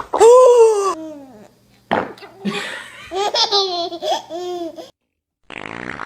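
Baby laughing in repeated bursts, a long high-pitched laugh first and then a run of shorter ones, followed near the end by a short rasping burst.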